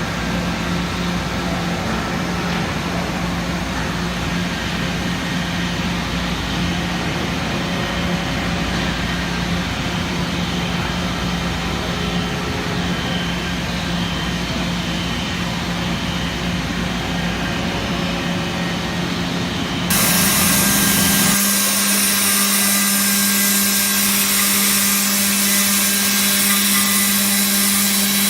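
Parpas Diamond Linear 30 five-axis machining centre milling a mould: a steady spindle hum with the hiss of the cutter in metal. About 20 seconds in, the sound switches abruptly to a louder, brighter cutting hiss.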